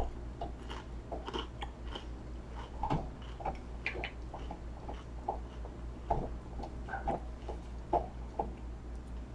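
Close-up chewing and biting of a crispy fried crab rangoon: irregular small crunches and crackles of the fried wonton wrapper with wet mouth sounds.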